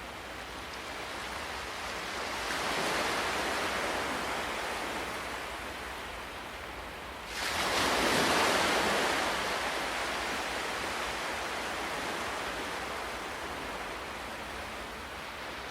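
Ocean waves breaking on a shore: a gentle swell about two seconds in, then a bigger wave crashing suddenly about seven seconds in and washing out slowly.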